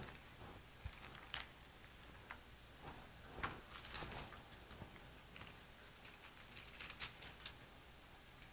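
Faint rustling and soft irregular clicks of thin Bible pages being turned by hand, as someone leafs through to find a passage.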